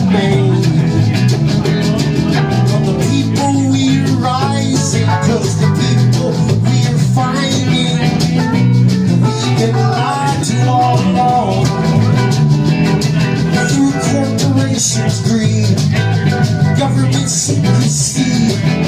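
A live folk jam band playing, with electric or acoustic guitar over a steady drum kit beat.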